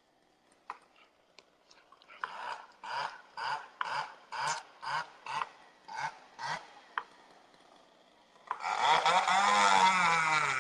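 A chainsaw runs about two-thirds of the way in and is the loudest sound, its engine speed wavering up and down as the tree-felling crew works. Before it comes a run of about ten short rhythmic pulses, about two a second.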